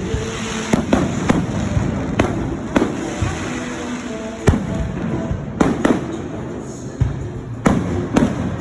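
Aerial fireworks bursting in an irregular series of sharp bangs, about ten of them, some close together, over a continuous crackle and rumble from the display.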